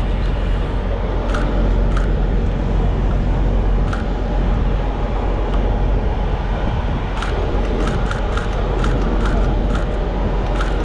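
Steady, loud low rumble of background noise, with a run of quick, sharp clicks starting about seven seconds in.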